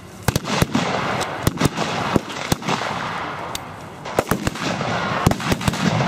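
Small-arms fire of blank rounds in a mock battle: sharp, irregular single shots and quick clusters of shots, over a steady rushing noise.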